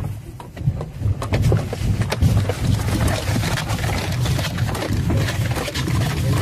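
Earthquake shaking: a deep continuous rumble with constant rattling and clattering of loose objects.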